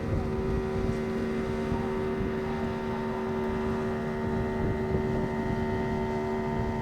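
Fishing boat's engine running steadily as the boat heads out, a constant drone over low rumble, with wind on the microphone.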